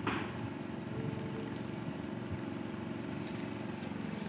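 A steady engine hum, with a few faint knocks.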